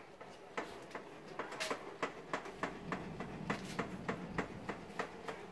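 Metal parts of a table saw being slid and adjusted by hand: an irregular run of light clicks and small knocks, several a second.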